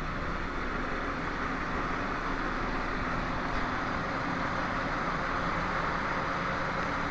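Steady drone of ship's machinery, an even rushing noise with a faint low hum underneath, unchanging throughout.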